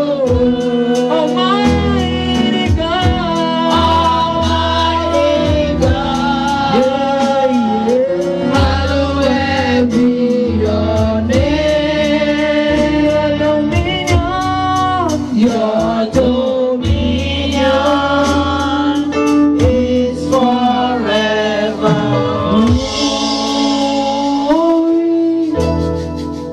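Women's voices singing a gospel worship song into microphones, a lead singer with backing vocalists, over instrumental accompaniment.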